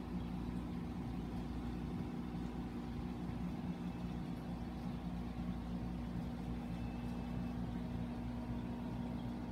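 Saltwater reef aquarium equipment running with a steady, unchanging low hum.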